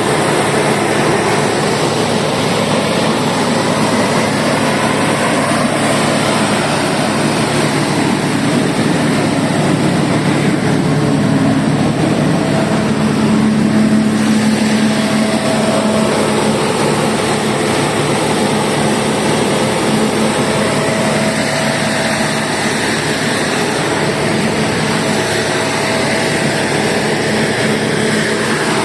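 150 kVA Deutz diesel generator set running steadily, with a faint steady whine coming in about halfway through.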